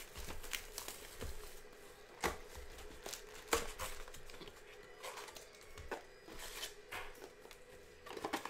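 A cardboard box of trading-card packs being opened by hand: a run of tearing, crinkling and scraping as the lid and inner flap are pulled back, with two sharper sounds about two and three and a half seconds in.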